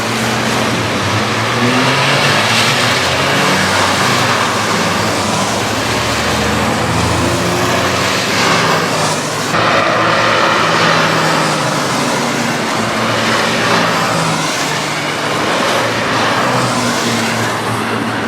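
Citroën C1 race cars running on track: several small engines at different, shifting pitches over a steady rushing hiss.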